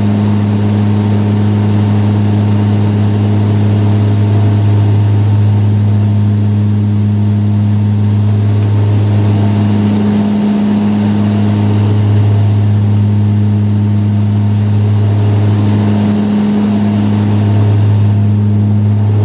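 Cabin drone of the BAe Jetstream 31's Garrett TPE331 turboprop engines and propellers in flight: a loud, steady low hum that slowly wavers, swelling and fading every few seconds.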